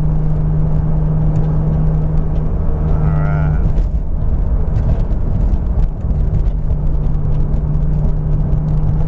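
Turbocharged BMW S52 straight-six of a 1999 Z3 M Coupe running under way with a steady low drone. A few seconds in, the drone breaks up into a rougher, shifting sound for about two seconds before settling back.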